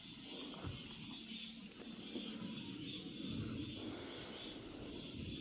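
Outdoor pond-side ambience: high-pitched insect chirping in repeated pulses over a steady hiss and a low rumble.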